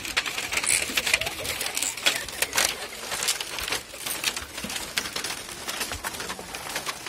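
Irregular clacking and knocking of a bamboo footbridge's slats under the footsteps of a line of people, several knocks a second.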